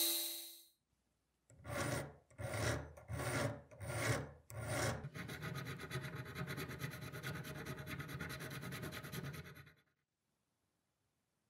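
A steel hand file rasping across a small brass part held in a vise: about five slow, separate strokes, then quicker continuous strokes that stop almost ten seconds in. At the very start, the whine of the milling cutter on the brass part fades out within the first second.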